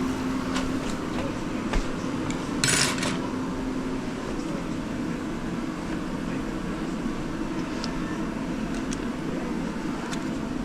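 Small metal tools and parts clicking and clinking now and then over a steady low hum, with a short hiss about three seconds in.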